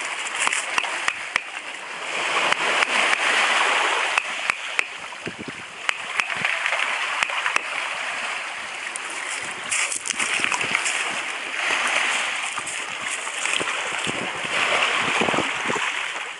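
Waves washing up on a pebble shore, a rushing water noise that swells and fades every few seconds, with scattered small clicks over it.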